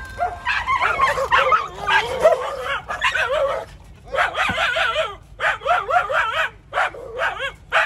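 Dogs whining and yipping in a run of about ten short, high, wavering cries, the eager whining of dogs as dog food is brought to them.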